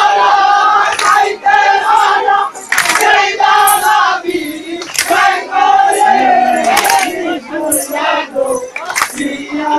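Jari gaan, a Bangladeshi folk song, chanted loudly by a group of voices in unison with long held notes, and a sharp beat about every two seconds.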